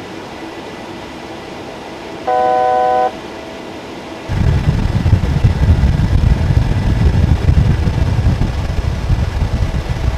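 Steady cockpit hum of a Boeing C-17 Globemaster III in flight, with a short steady electronic tone a little over two seconds in. About four seconds in, a loud, fluctuating low rumble starts and dominates the rest.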